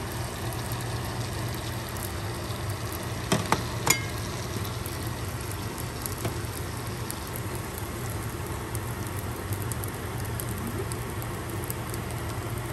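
Fried rice frying in a pan: a steady sizzle over a constant low hum, with two sharp knocks about three and a half and four seconds in.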